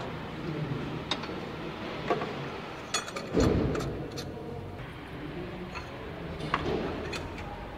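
Metal hand tools clicking and clinking as spark plugs and ignition coils are worked on in a car engine bay, with one heavier thud about three and a half seconds in, over a low steady hum.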